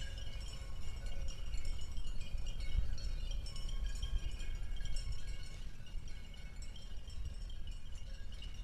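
Light, tinkling chime-like tones, many short high notes overlapping, over a steady low rumble.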